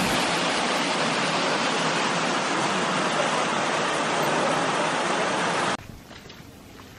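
Steady rush of falling water, like a waterfall heard close by, that cuts off abruptly about six seconds in, leaving a much quieter background.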